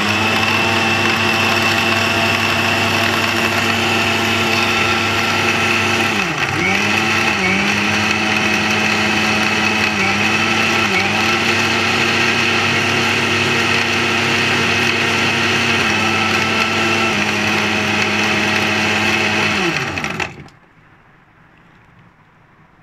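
Philips electric mixer grinder with a steel jar blending mango, milk and ice cubes: the motor runs steadily at high speed, its pitch briefly sagging a few times under the load, then winds down and stops about twenty seconds in.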